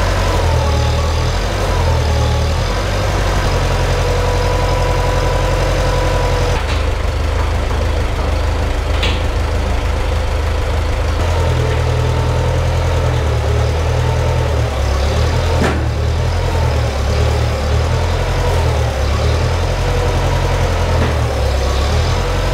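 Farmall 504 tractor engine running steadily while its front loader is worked, a loud low drone with a whine over it that wavers up and down in pitch.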